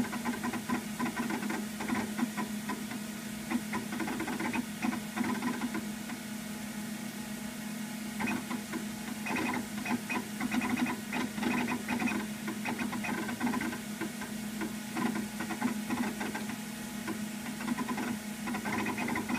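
Macintosh SE booting: its internal disk drive chatters and ticks in irregular spells as it loads the system, over the computer's steady hum.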